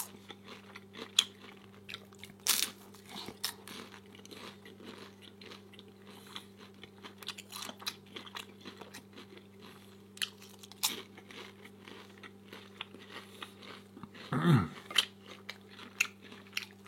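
Close-up crunching and chewing of a crispy fried egg roll, eaten without sauce: many sharp, irregular crunches. A steady low electrical hum runs underneath, and a brief louder sound with falling pitch comes near the end.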